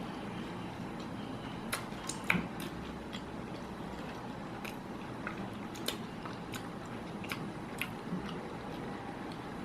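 A person chewing a mouthful of chicken burger with lettuce, with irregular wet mouth clicks and crunches, the sharpest a little over two seconds in.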